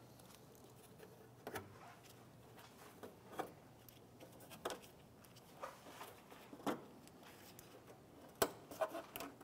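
Scattered light clicks and taps from gloved hands handling plastic trim clips and a tool at the car's front panel, with a quick cluster of clicks near the end.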